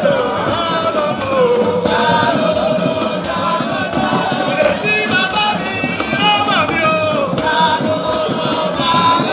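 Lively music: a wavering melody over a dense, steady shaken-rattle beat.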